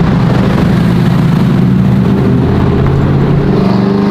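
Pickup truck engine running steadily under way, its pitch creeping up slightly near the end as it gathers speed.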